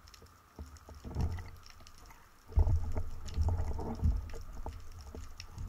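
Muffled low rumbling of water moving around an underwater camera, with a few faint knocks. It is quiet at first and grows louder about two and a half seconds in.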